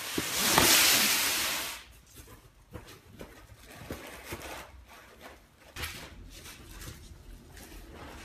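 A loud rushing noise for about the first two seconds, then quiet, scattered rustling and small clicks as beagles root through paper in a cardboard box on a tile floor.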